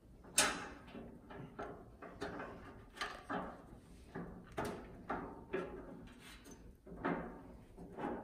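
Metal clanks and rattles as a bent metal bar is worked into the side shelf of a flat top grill: a string of short knocks about two a second, the sharpest about half a second in.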